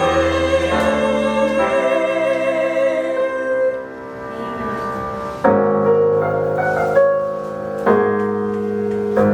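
Instrumental gospel accompaniment led by piano. A held chord with a wavering note dies away about four seconds in, then new piano chords are struck every couple of seconds.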